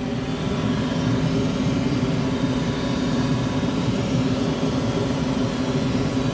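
Gas furnace running: a steady mechanical hum with a constant low tone, unchanging throughout.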